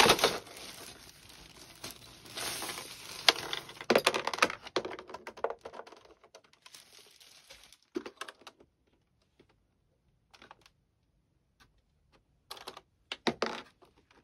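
Plastic packaging crinkling and rustling for the first few seconds, then separate clicks spaced out, with a quick cluster near the end, as keys on an ACTTO B503 retro-style keyboard are pressed.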